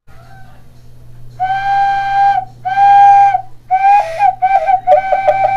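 Handmade fired clay whistle blown: two long steady notes, then a wavering note and a fast fluttering trill near the end.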